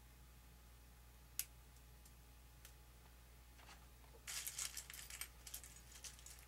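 Small lightweight aluminum brackets clinking as they are handled: one sharp click, a few faint ticks, then a quick run of metallic jangling clinks about four seconds in, over a faint low hum.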